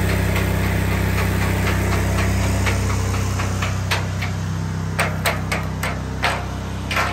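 A steady engine hum runs under a series of sharp knocks of steel being hammered, sparse at first and then louder and closer together in the second half.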